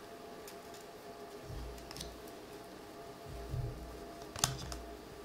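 Baseball cards being shuffled through by hand: faint rustling and light clicks of card stock sliding against card, with a few soft low thumps and one sharper click about four seconds in.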